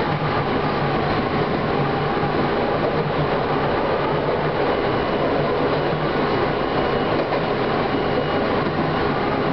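Chichibu Railway electric train running along the track, heard from inside the driver's cab: steady running noise of wheels on rails with a faint even hum.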